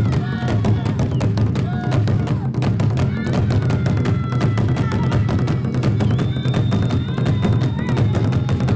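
Traditional Zulu drums beaten rapidly with sticks by several drummers together: a fast, dense, steady beat. Short high notes sound over the drumming at times.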